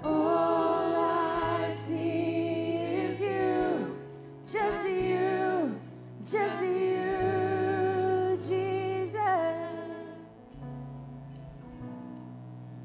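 Contemporary worship band music: a woman singing long held notes that slide downward at the ends of phrases, over bass guitar and keyboard. The voice stops about ten seconds in, leaving soft keyboard and bass.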